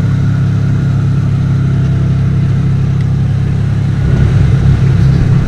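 Side-by-side UTV engine running steadily while driving over a farm trail, heard from the cab. It gets louder and rougher about four seconds in.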